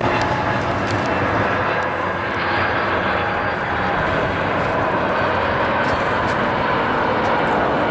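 Jet airliner engines running loud and steady close by, a broad rush with a faint whine of steady tones over it.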